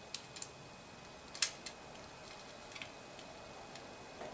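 Light, sharp metal clicks and ticks from a hook tool and stiff wire working against the brush holder inside an alternator housing, as the brushes are pushed down and pinned back so the rotor can be fitted. There are several scattered clicks, the sharpest about a second and a half in.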